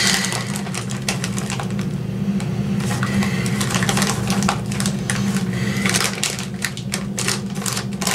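An Old Dutch Project Nice snack bag crinkling and crackling in quick irregular bursts as it is opened and handled, over a steady low hum.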